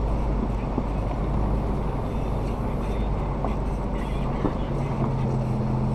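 Off-road 4x4's engine running at low, steady revs as it crawls along a rocky gravel trail, with a constant low rumble.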